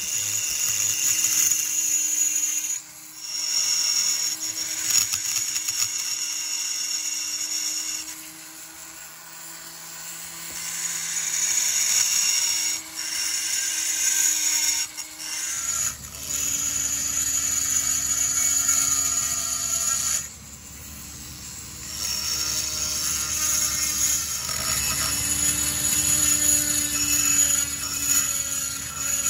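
High-speed rotary tool with a small burr grinding the port of a Homelite Super XL-130 chainsaw's cylinder: a steady high whine that stops briefly a few times and starts again.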